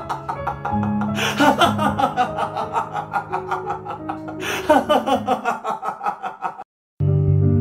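Upbeat background music with a quick, steady beat, with a man laughing loudly over it. About seven seconds in the music cuts off briefly and a soft piano piece begins.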